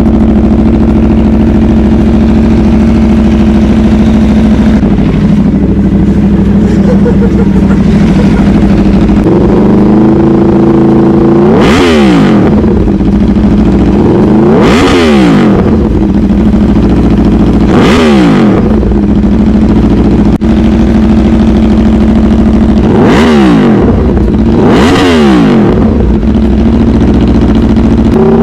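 Aprilia Tuono V4 motorcycle's V4 engine running through an aftermarket Leo Vince exhaust: a steady idle whose speed rises a little about ten seconds in, then five quick throttle blips, each a sharp rise and fall in pitch, with the revs climbing again at the very end.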